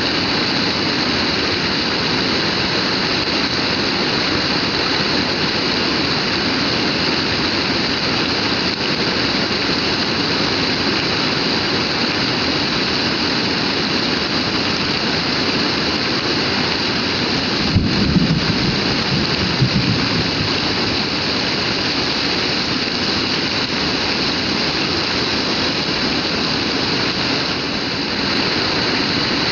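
Heavy rain pouring steadily, a dense even hiss. About two-thirds of the way through, a brief low rumble with a few sharp knocks.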